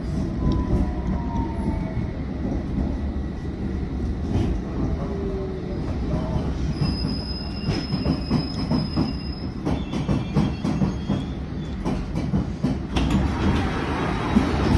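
London Underground S-stock train heard from inside the carriage, running and slowing into a station: a steady rumble of wheels and running gear, with a high steady squeal for a couple of seconds midway and clicks over the rails as it brakes. Near the end the hiss rises as the sliding doors open onto the platform.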